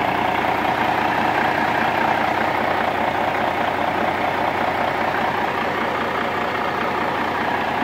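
Kenworth T800's freshly rebuilt Cummins N14 Select Plus inline-six turbo diesel idling steadily at close range, heard in its engine bay.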